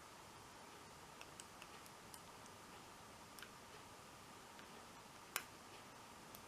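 Faint, sparse metallic clicks of a lock pick working the pins of an American 1100 six-pin padlock, with one louder click about five seconds in. The plug is sitting in a false set.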